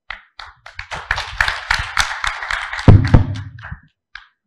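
Audience applauding, building to a dense patter of claps and dying away after about four seconds, with two heavy thumps about three seconds in.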